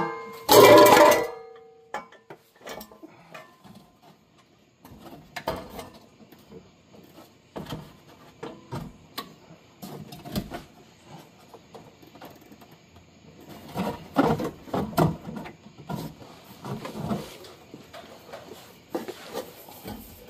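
Stainless-steel aftermarket axle-back exhaust pipe and muffler clanking against metal as it is handled into place under the car. A loud ringing clang comes in the first two seconds, then scattered knocks and rattles, busiest about fourteen seconds in.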